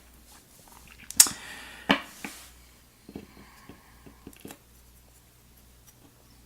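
Small sharp clicks and taps of lock parts and tools being handled at a pinning tray. Two louder clicks come about a second and two seconds in, then a few faint ticks.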